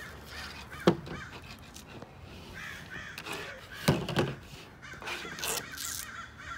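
Crows cawing repeatedly in the background. Two sharp clatters stand out, about a second in and about four seconds in.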